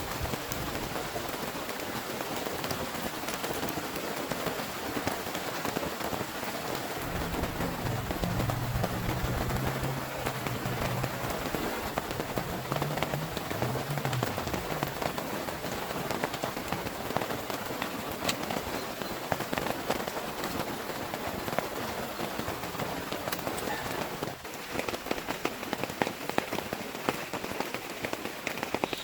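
Heavy rain falling steadily, with many separate drops striking close by, growing more distinct from about 24 seconds in. A low rumble sits under the rain for several seconds about a quarter of the way in.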